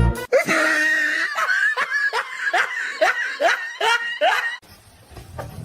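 A person laughing in a run of about a dozen short, rising 'ha' bursts, about three a second, which cut off suddenly about a second before the end.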